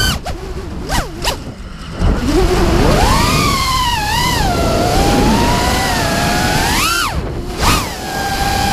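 Racing quadcopter's four brushless motors (Lumenier 2206-2350kv on 5-inch props) whining as the throttle changes: the pitch drops away on a throttle cut near the start, blips twice, then climbs and wavers, with two sharp throttle punches near the end before settling to a steady whine. Low wind rumble sits underneath, heard from the onboard camera.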